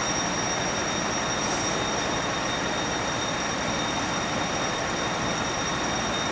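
Steady vehicle noise at an even level, with faint constant high-pitched whines above it.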